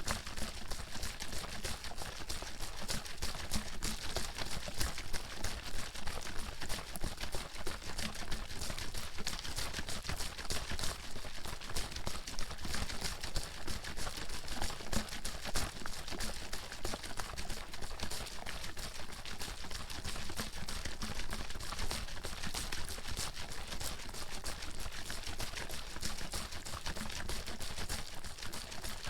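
Water bottle being shaken continuously, the water sloshing and splashing inside it in a quick, rhythmic pattern.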